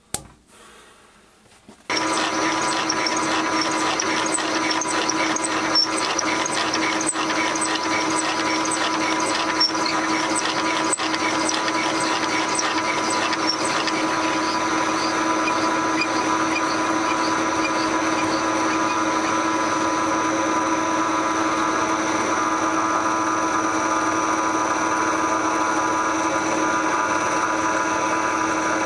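Metal lathe switched on about two seconds in and running steadily at low speed, its motor and gearing giving a steady whine with several fixed tones, while a large twist drill bores out the centre hole of a cast iron workpiece. A light regular ticking is heard over the first half of the run.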